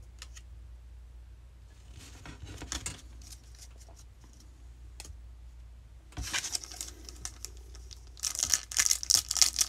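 Soft clicks and rustles of baseball cards being handled and set down, then, from about six seconds in, the foil wrapper of a 2020 Bowman card pack crinkling. The crinkling gets loud and dense about eight seconds in as the wrapper is torn open.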